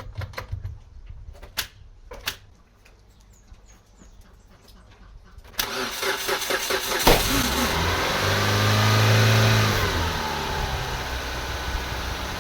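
A few sharp clicks, then the 2003 Mitsubishi Lancer's four-cylinder engine is cranked by the starter about halfway in and catches with a loud pop: a spark plug coil popping out, which the owner puts down to brake-cleaner residue igniting. The revs rise, then fall back to a steady cold-start idle.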